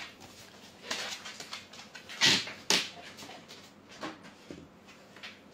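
Labradors moving about on a hard tiled floor: a few scattered short knocks and clicks, the loudest two close together about halfway through.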